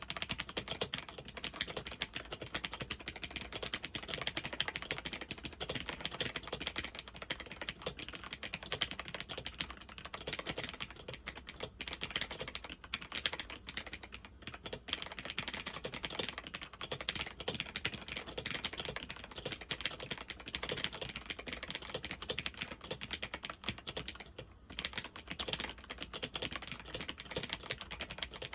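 Steady, fast typing on a Zenith ZFL-181-93 laptop keyboard with Alps SKFL switches and doubleshot keycaps: a continuous stream of key clicks with a few brief pauses. The switches are worn, with many of them binding.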